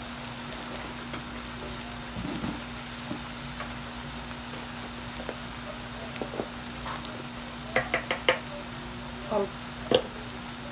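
Sliced onions frying in oil in a nonstick pan: a steady sizzle with a low hum underneath. A quick run of about four sharp clicks comes about eight seconds in, and one more near the end.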